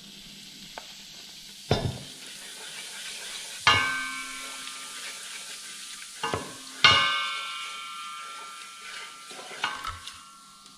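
Turmeric sizzling in hot oil in a large stainless steel stockpot while it is stirred with a wooden spoon, the spice frying in the oil. The spoon knocks against the pot a few times, and after each knock the pot rings and fades out; the knocks at about four and seven seconds in are the loudest.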